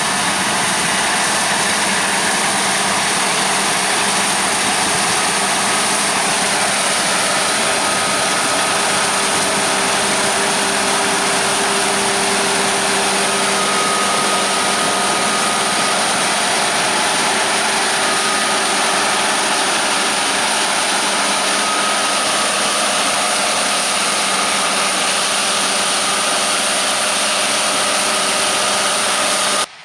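John Deere harvest machinery running steadily at work: dense engine and machine noise with a few faint steady tones. It cuts off suddenly near the end.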